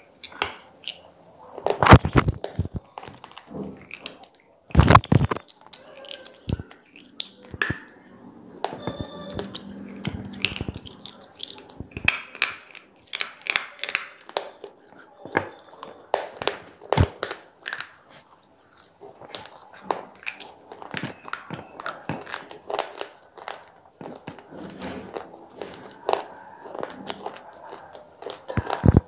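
Square pieces of slate being bitten and chewed close to the microphone: sharp crunching snaps, loudest about two and five seconds in, with gritty chewing between the bites.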